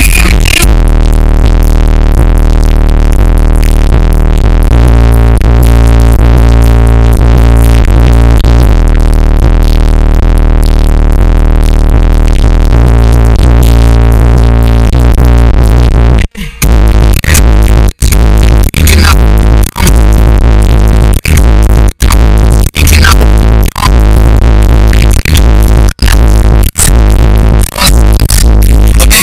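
Hip-hop music played very loud through a car audio system with an American Bass DX 15-inch subwoofer, heard inside the cabin, with deep bass throughout. About halfway through, the music starts dropping out for split seconds, over and over.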